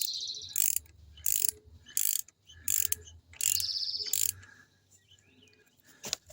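Ratchet wrench tightening a bolt by hand on the Yamaha TW200 engine, in about six short, evenly spaced ratcheting strokes that stop about four seconds in. A bird chirps in the background.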